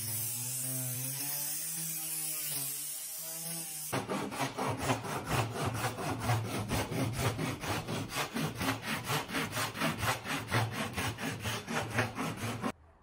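An electric orbital sander runs for about the first four seconds, its pitch wavering. Then a hand saw cuts through spruce in quick regular strokes, about four or five a second, until the sawing stops abruptly near the end.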